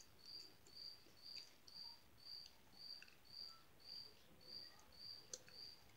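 Cricket chirping faintly, short high chirps repeating evenly about twice a second.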